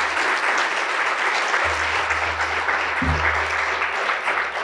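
Audience applauding steadily, one big round of applause.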